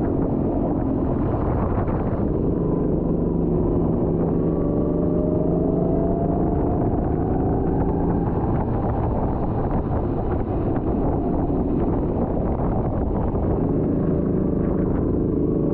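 Go-kart engine running hard at speed, its pitch dipping and climbing again as the kart slows for corners and accelerates out, over a steady rush of noise.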